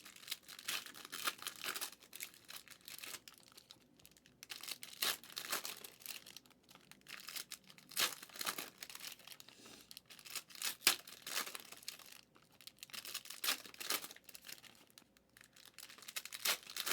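Foil trading-card pack wrappers being torn open and crinkled: irregular bursts of rustling and crackling.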